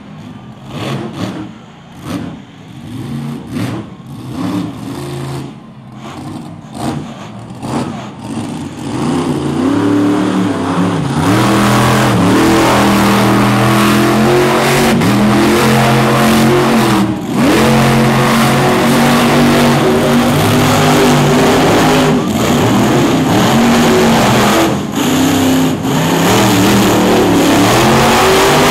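Monster truck engine revving in short blips. About a third of the way in it opens up into a loud, sustained run at high revs, its pitch rising and falling, with a couple of brief drops in power.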